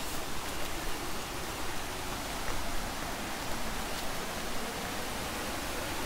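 Steady rushing of flowing water from a stream or waterfall below the path, an even hiss without change.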